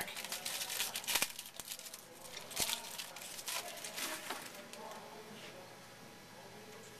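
A 2011 Topps football jumbo card pack being torn open, its wrapper crinkling, then the cards rustling as they are handled. The crackling is busiest in the first half and dies away after about five seconds.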